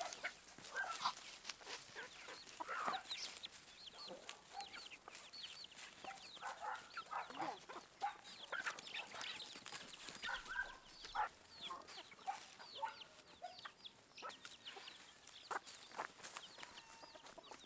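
Farmyard flock of chickens clucking and calling while feeding on scattered grain, a busy stream of many short high calls and clucks.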